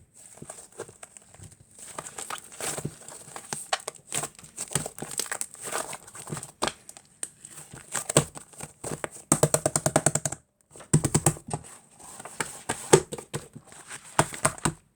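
Fluffy mixed slime being squished and poked by hand, giving a stream of sticky crackles and small pops, with a quick run of even pokes about two-thirds of the way through.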